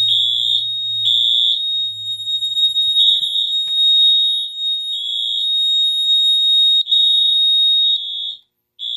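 A fire alarm system in alarm after an i3 smoke detector was set off, sounding a shrill high beep in the three-beep temporal pattern. The alarm stops about eight seconds in as the system is shut off, then gives one more short beep.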